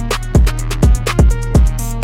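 Electronic background music with a steady kick-drum beat, a little over two beats a second, hi-hat ticks and held synth notes.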